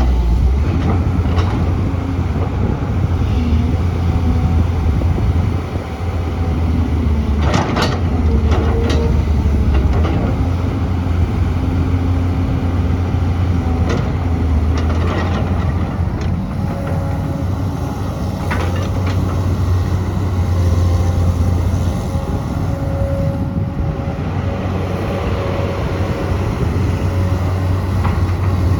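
Caterpillar 320 hydraulic excavator's diesel engine running steadily, with shifting mid-pitched tones over it and occasional sharp clanks.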